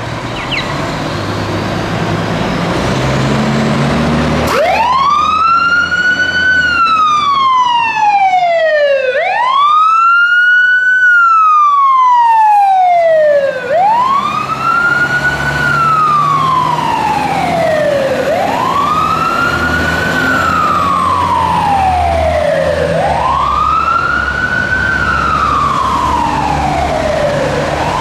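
Fire truck's diesel engine revving as it pulls away. About four and a half seconds in, its siren starts a wail that rises quickly and falls back slowly, one sweep about every four and a half seconds.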